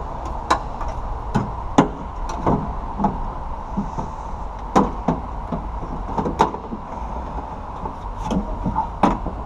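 A new window regulator knocking and clicking against the inside of an Acura RSX door shell as it is worked into place, with about a dozen irregular knocks over a low steady hum.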